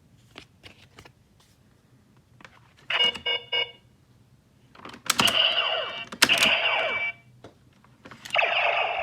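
Kamen Rider toy transformation belt playing electronic sound effects through its small speaker: a short beep, then a longer burst with falling tones, then another held electronic tone. Light plastic clicks of cards and parts being handled come before them.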